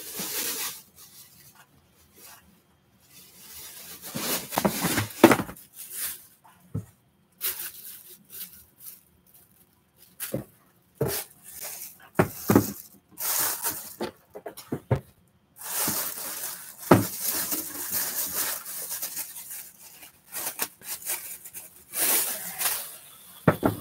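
A cardboard box being handled and a thin plastic bag crinkling and rustling in irregular bursts as a football helmet wrapped in it is lifted out.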